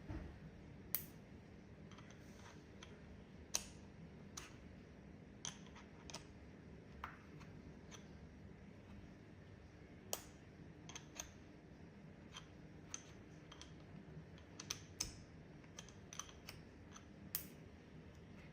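Metal parts of a Wera Zyklop ratchet set clicking and tapping as sockets and attachments are handled and fitted: sharp, irregularly spaced clicks, a few louder than the rest, over a steady low hum.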